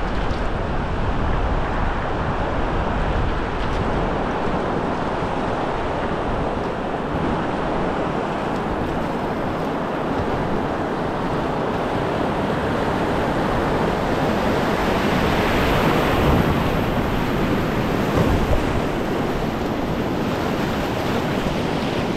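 Rushing whitewater of a shallow river weir, heard from an open canoe running down through it, a steady rush that grows louder about two-thirds of the way in.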